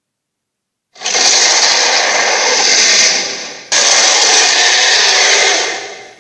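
Two harsh, raspy roars of a giant-creature sound effect: the first starts about a second in and tails off, the second cuts in abruptly and fades near the end.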